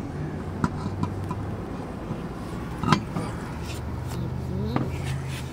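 Metal clinks and knocks of a lug wrench on the lug nuts of a temporary spare wheel being fitted, the loudest about three seconds in, over a steady low hum.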